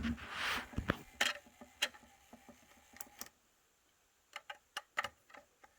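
A small plastic battery-powered makeup-brush washing machine being handled: a knock and a short swish of water at the start, then scattered sharp plastic clicks and taps. The machine's faint running sound stops about three seconds in, and a quick run of clicks follows near the end.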